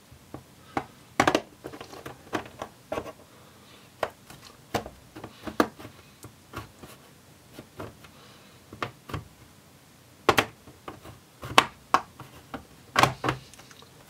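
Plastic retaining clips of a laptop's base panel snapping loose one after another as a plastic pry tool is worked along the seam between base and chassis. Irregular sharp clicks, the loudest about a second in and several more in the last four seconds.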